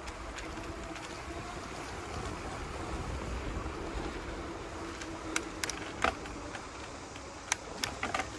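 Bicycle rolling along a concrete trail: steady wind and tyre noise, with a faint hum. From about five seconds in come half a dozen sharp clicks and rattles.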